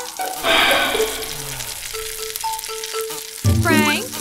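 Cartoon sound effect of a steak sizzling on a grill, over light background music. Near the end there is a short, loud pitched sound that slides up and down.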